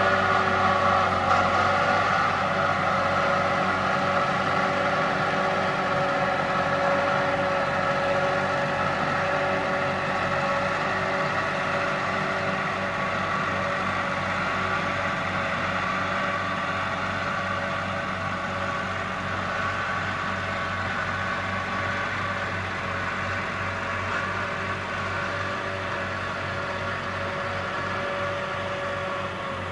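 Farm tractor engine running steadily while pulling a mower, with steady whining tones over the engine note. It grows slowly fainter as the tractor moves away.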